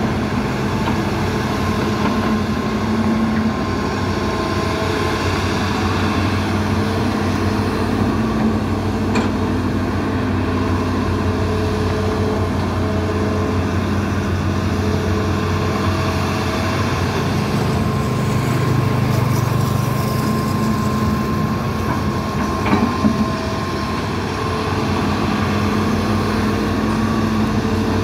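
Diesel engines of two hydraulic crawler excavators, a Hitachi and a Sumitomo, running steadily under load while digging, a continuous drone with a whine that comes and goes. A few short knocks about three-quarters of the way through.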